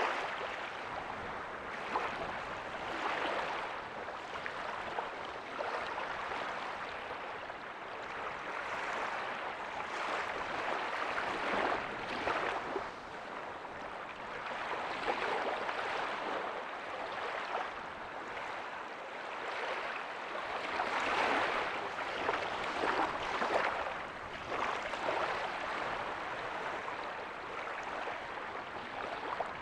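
Small waves breaking and washing on a beach: a continuous hiss of surf that swells and eases every few seconds.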